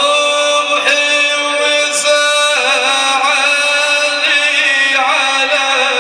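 A male voice chanting an Arabic mourning lament (naʿi), holding long drawn-out notes with wavering melodic turns about halfway through and again near the end.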